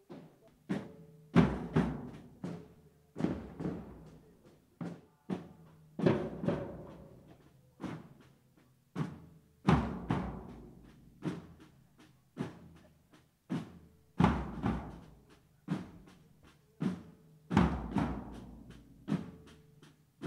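Processional drum corps of bass drums and smaller drums beating a slow, solemn cadence: a heavy group of strokes every three to four seconds, with lighter single beats between, each stroke ringing out as it decays.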